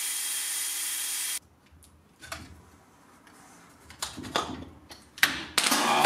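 Cordless drill running steadily as a makeshift lathe, spinning a steel rod that is being ground down to fit 17 mm bearings; it stops suddenly just over a second in. Then come quiet handling noises and louder scraping as a nylon roller is pushed onto the rod, with a sharp click a little after five seconds.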